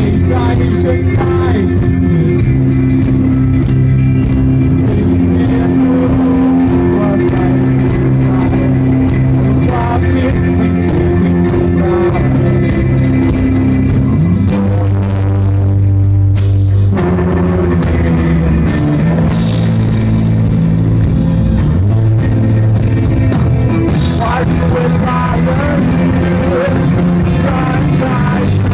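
Live rock band playing loud through a PA: electric bass, electric guitar and drum kit, with a singer. Around the middle there is a short break where the cymbals and top end drop out, then the full band comes back in.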